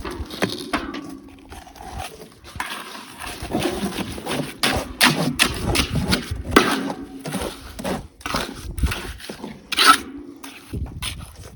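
Irregular scraping and rubbing with many sharp knocks, the handling noise of building work on the roof.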